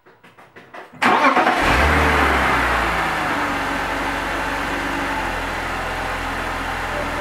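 BMW E46 3 Series inline-six turning over on the starter, catching about a second in with a brief flare of revs, then settling into a steady idle. It is a test run of a newly replaced DISA valve.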